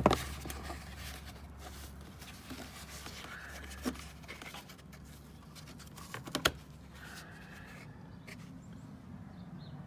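Faint handling of parts during the door-handle job, with a few sharp clicks and knocks, the loudest just after six seconds in.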